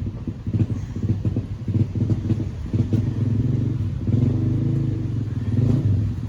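An engine running at a steady speed nearby, a low pulsing drone.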